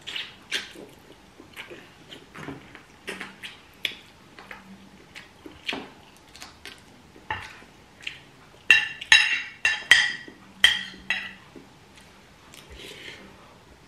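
Metal spoon and fork clinking and scraping against plates while eating, in scattered short clicks, with a run of louder ringing clinks about nine to eleven seconds in.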